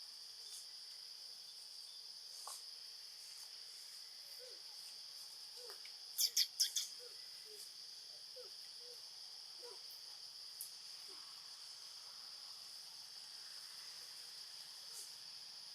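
Steady high-pitched insect drone, with a quick run of four sharp, high calls about six seconds in, which are the loudest sound. Faint low chirps come and go.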